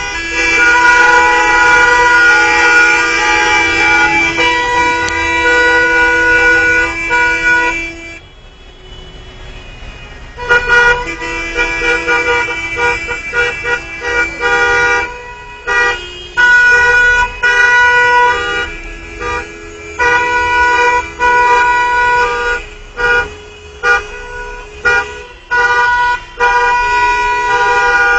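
Many car horns honking together in protest, several pitches overlapping. They hold long continuous blasts, drop into a brief lull about eight seconds in, then resume and break up into shorter, rhythmic toots toward the end.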